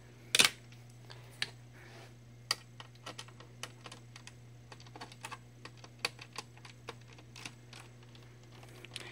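Scattered light clicks and taps of a screwdriver and hands working on a laptop's plastic case, irregular with a couple of sharper knocks, while the hard-drive screw is being got at. A steady low hum runs underneath.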